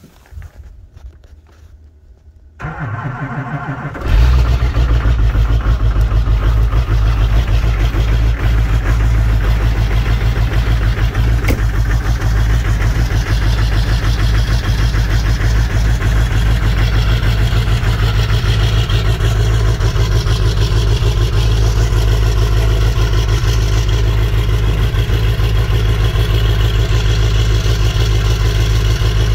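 LB7 Duramax 6.6-litre V8 turbodiesel in a 2001 GMC Sierra 2500HD, cold-started at about minus ten degrees: it cranks about two and a half seconds in, catches about a second and a half later, then idles steadily with a deep rumble, heard near the exhaust tip.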